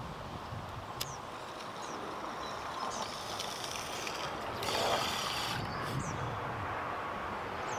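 Airplane passing overhead: a steady rumble that slowly grows louder, with a brief rush of air about five seconds in and a few faint bird chirps.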